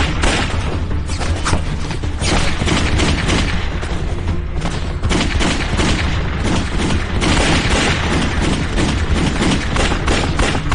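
Pistol gunfire in a gunfight: many shots in quick succession, packed closely throughout, over background music.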